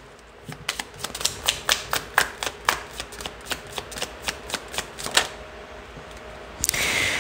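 A deck of tarot cards being shuffled by hand: a rapid run of sharp card clicks for about five seconds, then a short rustling burst near the end.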